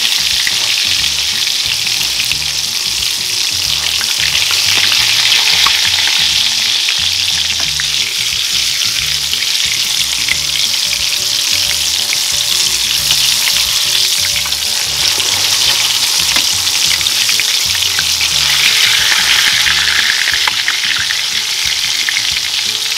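Egg-battered dried fish frying in hot oil in a skillet: a steady, dense sizzle full of fine crackling.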